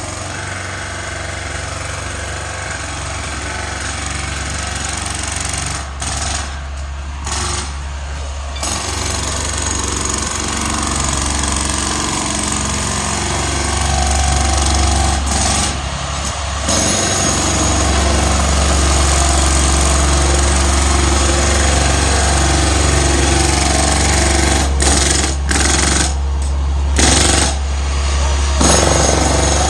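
Construction machinery running on a waterline job: a loud, steady low engine drone with rough, hammering-type mechanical noise over it. The rough noise drops out briefly a few times, about six to eight seconds in, around sixteen seconds and again near the end, while the drone keeps going.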